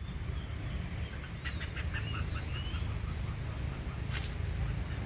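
A small squirrel (กระจ้อน) calling: a rapid series of sharp chirps about a second and a half in, then fainter chirps, over a steady low rumble. A short rustling burst comes near the end.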